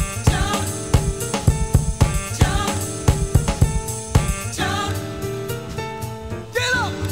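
Dance music playing, with a hard-hitting drum beat and a vocal. About two-thirds of the way through, the beat drops out, leaving held chords and a sung line.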